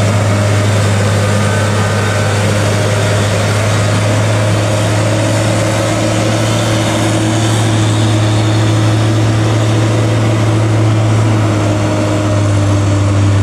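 Heavily loaded six-wheel cargo truck's diesel engine pulling up a steep climb, a deep steady drone.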